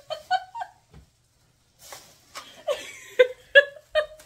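A woman laughing in two bouts of short, rhythmic ha-ha bursts, with a pause of about a second between them. During the second bout a thin plastic shopping bag rustles as it is handled.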